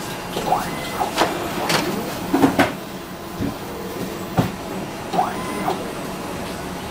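HP LaserJet MFP M438nda laser multifunction printer warming up after power-on: a run of mechanical clicks and knocks and a few short rising whirs over a steady hum as it initialises.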